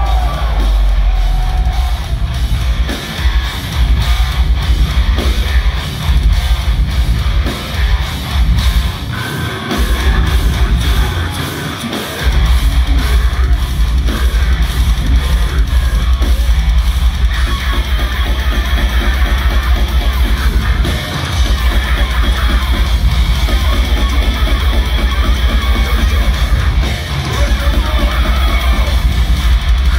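Deathcore band playing live: heavy distorted guitars over pounding kick drums, with short stops in the riff a few times, heard from within the crowd.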